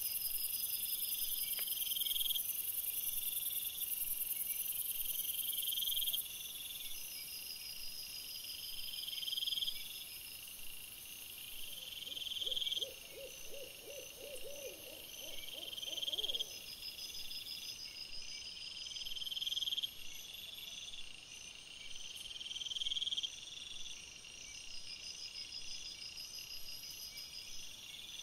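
Night insect chorus of crickets: a steady high trill with a buzzing phrase that swells and cuts off every two to three seconds. The highest layer drops out about six seconds in. Near the middle, a quick run of about a dozen low hoot-like notes lasts some four seconds.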